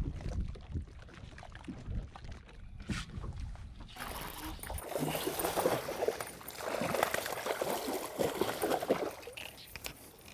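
A hooked bass thrashing and splashing at the water's surface beside the boat, in several splashy bursts from about five seconds in until near the end. Before that, a low wind rumble on the microphone.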